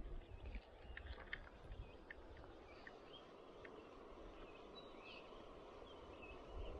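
Faint birdsong: scattered short chirps and a few brief whistled calls over a low, steady background hiss.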